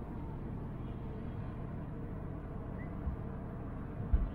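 Steady low outdoor rumble, with two brief low thumps near the end, the second the louder.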